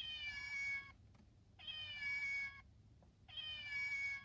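A cat meow from a children's sound book's sound button, played three times, each the same falling meow about a second long with short gaps between.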